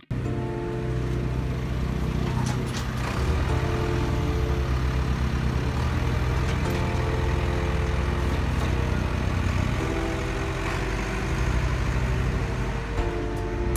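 Engine sound of a radio-controlled Liebherr 574 model wheel loader, running steadily with a low pulsing drone whose pitch shifts a little as the loader drives.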